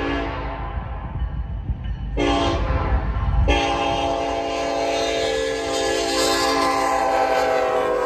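Diesel locomotive air horn sounding the grade-crossing signal: a long blast ends just after the start, a short blast comes about two seconds in, and a final long blast runs from about three and a half seconds and cuts off sharply near the end. Under it runs the low rumble of the approaching locomotive and train.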